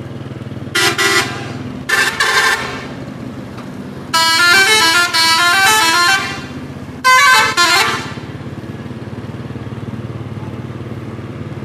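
Indonesian bus 'telolet' multi-tone horn: two short blasts, then a long run of stepping notes playing a tune, then one more short blast near 7 s. Underneath, a steady low engine hum runs on alone once the horn stops.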